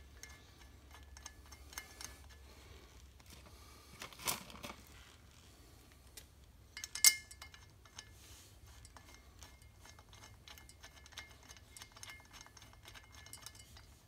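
Small metal clicks and clinks of bolts being handled by hand at a torque-tube flange on a rear axle, with two sharper clinks about four and seven seconds in.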